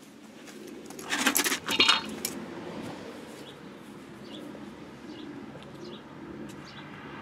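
Metal hand tools clanking and jangling together in a short loud flurry about a second in, then a steady low rumble with a few faint metallic ticks.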